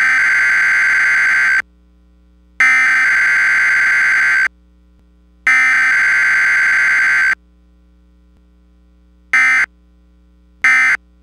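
Emergency Alert System SAME data tones: three bursts of the harsh, screeching two-tone digital header, each about two seconds long with a second's gap, sending the Required Weekly Test code. Near the end come two short bursts of the end-of-message code, about a second apart.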